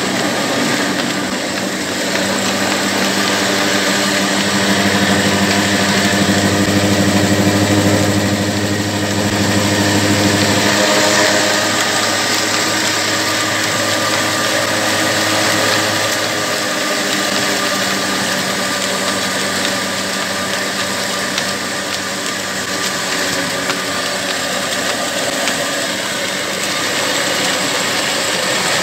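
Old 25 HP diesel engine running at a steady speed, driving flat belts and pulleys that turn a rice grinder and other mill machines. A deeper hum comes in about four seconds in and drops away about halfway through.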